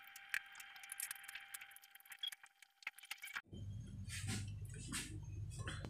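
A metal spoon clicking and scraping in a ceramic bowl as eggs are cracked in and the shredded cabbage mixture is stirred: many small sharp clicks. About three and a half seconds in this cuts off to a low steady hum.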